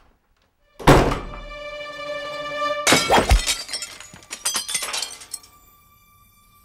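A sudden loud crash of something breaking about a second in, leaving ringing tones that hold on. A second, longer run of crashing and breaking impacts follows about three seconds in, then dies away.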